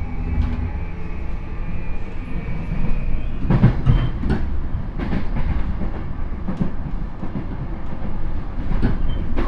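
Interior running sound of a JR E235 series electric train's motor car, with its Toshiba 140 kW totally enclosed traction motors and Mitsubishi SiC inverter. A steady whine from the motor drive over the running rumble fades within the first three seconds. From about three and a half seconds in, the wheels clatter over rail joints in a run of sharp clicks and thuds, heaviest at first.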